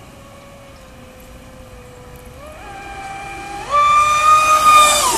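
Traxxas Spartan RC boat's brushless electric motor whining, its pitch stepping up twice as the throttle is opened. It gets much louder for the last second and a half, with a rushing hiss over the whine.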